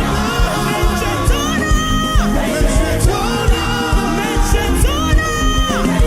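Live gospel praise music: a band with a steady drum beat, about two hits a second, under long held sung notes that bend in pitch.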